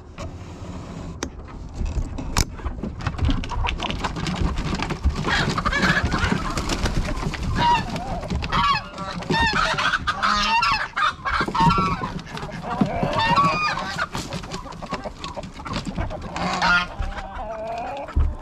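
A backyard flock of chickens clucking and squawking, with loud honking calls mixed in, busiest from about five seconds in.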